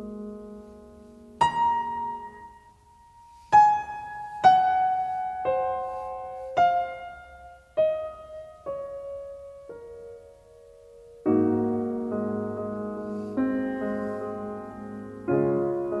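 Slow solo piano music: single notes stepping down in pitch one at a time, each left to fade, then fuller chords from about eleven seconds in.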